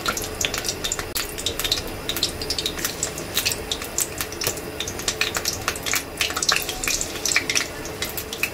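Cornflour-coated chicken pieces deep-frying in hot oil in a wok, a dense, steady crackling sizzle as more pieces are dropped in one at a time.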